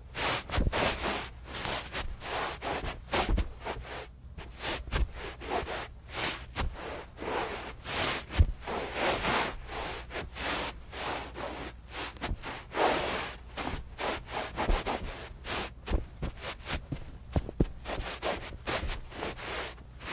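Tennis shoes shuffling and scuffing on carpet: an irregular run of soft rubbing, scraping strokes, several a second, with light low thuds from the steps.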